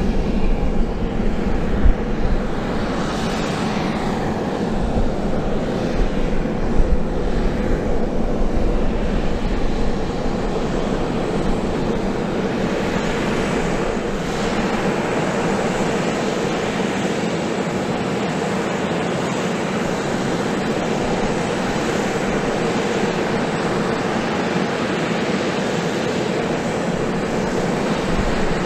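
Steady turbine whine and hum from a parked USAF CV-22 Osprey during its pre-flight checks, with steady hum tones throughout. Wind buffets the microphone in the first several seconds.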